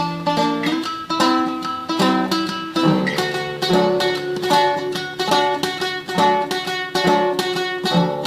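Solo classical guitar playing a tremolo piece: quickly repeated plucked melody notes over a moving bass line.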